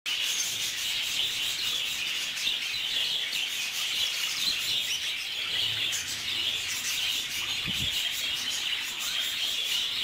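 A flock of budgerigars in a cage chattering and chirping together without a break.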